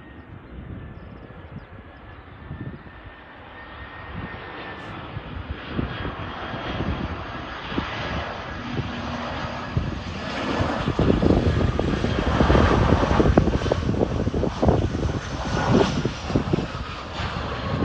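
Jet engines of an easyJet Airbus A320-family airliner landing: a low rumble with a high engine whine that slowly falls in pitch, growing louder as the jet comes in and touches down.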